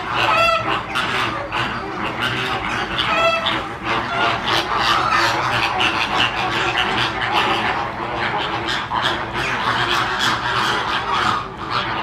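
A flock of flamingos honking, many goose-like calls overlapping without pause, with two louder, clearer honks about half a second in and about three seconds in.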